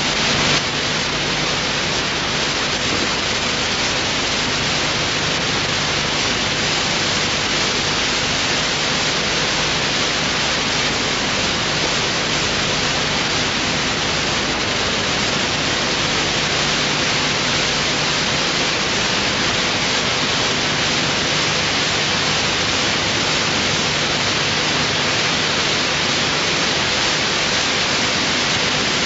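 Steady, even static hiss with a faint low hum underneath, unchanging throughout.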